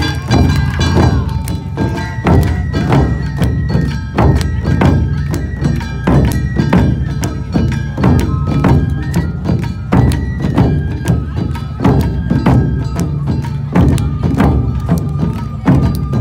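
Live Japanese festival dance music played by a parading troupe: large taiko drums beating steadily, with a high melody line stepping from note to note above them.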